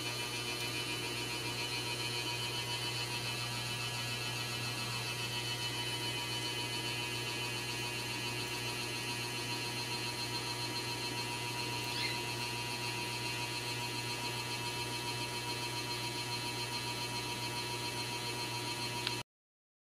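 Steady electrical hum made of several held tones, with one brief faint high chirp about two-thirds of the way through; it cuts off abruptly near the end.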